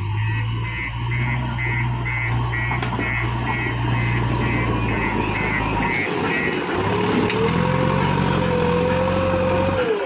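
JCB 3DX backhoe loader's diesel engine running, with its reversing alarm beeping about two and a half times a second. After a cut, the engine revs up and a rising whine settles into a steady tone as the loader bucket is lifted.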